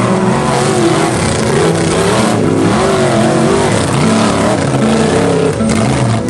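Off-road truck engine revving hard, its pitch rising and falling repeatedly as the throttle is worked.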